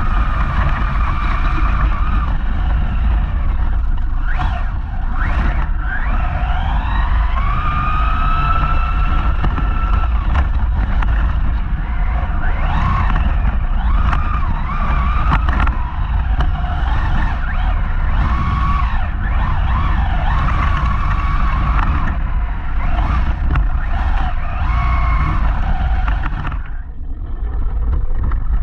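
Whine of a Traxxas Raptor R RC truck's brushless motor, picked up by a camera mounted on the truck, rising and falling in pitch as the throttle is worked, over a steady low rumble of wheels and wind. The sound dips briefly and changes near the end.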